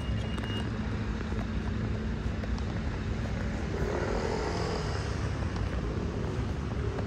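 Steady low engine rumble with outdoor noise, swelling briefly about four seconds in.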